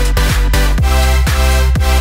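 Electronic dance music with heavy bass and a steady beat of thumps, about two a second.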